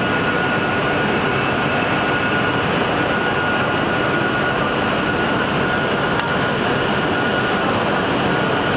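Homag BAZ CNC woodworking machining centre running: a steady, even rush of machine noise with a constant high whine over it.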